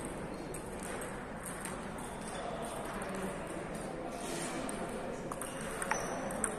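Table tennis ball struck back and forth in a rally, a few sharp clicks about half a second apart near the end over steady background noise.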